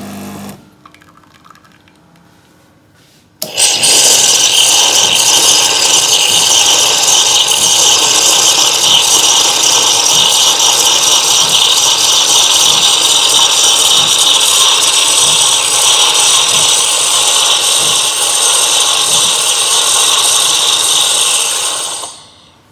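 Oster Prima Latte espresso machine running its cappuccino cycle: a loud, steady pump buzz and hiss starts a few seconds in and cuts off near the end.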